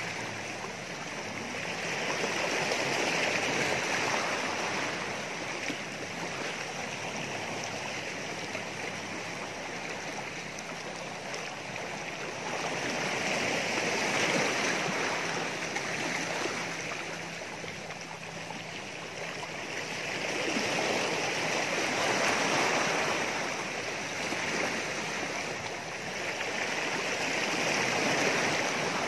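Small sea waves washing against a rocky shore. The rush of water swells and falls back every several seconds.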